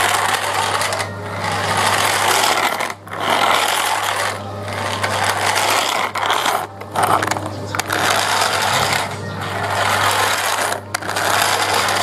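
Toy remote-control car's small electric motor and plastic gears whirring, stopping and starting every second or two as it is driven.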